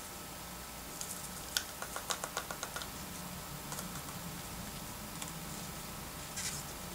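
Light tapping and small clicks of a folded paper slip and thin plastic seedling cups being handled while seeds are sown: a quick run of about a dozen ticks about a second in, then a few scattered clicks and a brief rustle near the end, over a low steady hum.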